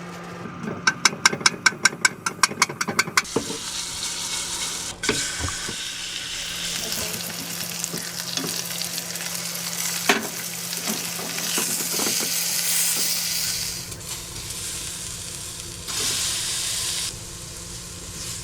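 Food frying and sizzling in a pan, with a few knocks of utensils. It is preceded by a rapid, even run of about fifteen clicks during the first three seconds.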